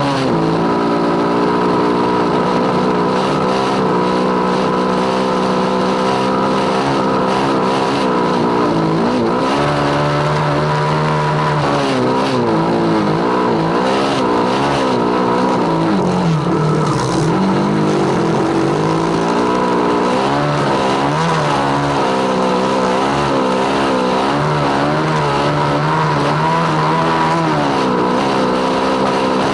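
Small single-cylinder motorcycle engine running under load, its revs rising and falling continuously.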